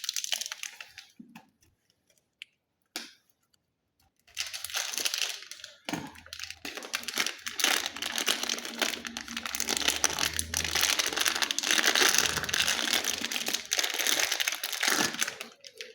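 Plastic wrapping around a printer ink bottle crinkling and tearing as it is unwrapped: a short burst, a pause of a few seconds, then about eleven seconds of continuous crinkling.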